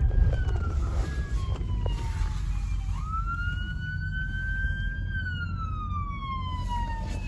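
FDNY emergency SUV's siren on a slow wail, sweeping down, back up and down again over several seconds, over a steady low rumble of traffic.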